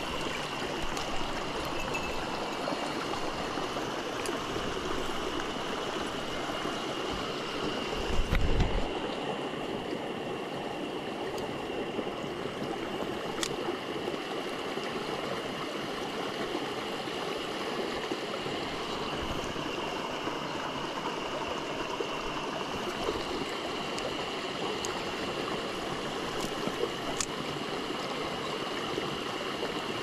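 A small mountain stream flows steadily over rocks and a low cascade. A brief low rumble comes about eight seconds in.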